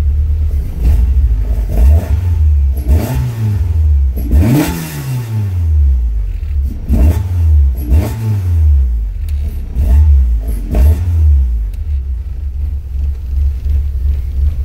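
Toyota AE86's 16-valve 4A-GE four-cylinder on individual throttle bodies and HKS 272 cams, idling low and blipped about eight times in quick succession. The engine note rises and falls with each blip, and the biggest rev comes about four and a half seconds in before it drops back to idle.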